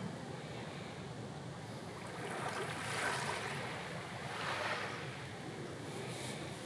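Small sea waves washing in on a calm shore: a steady wash of surf with two swells of hiss, about three and four and a half seconds in.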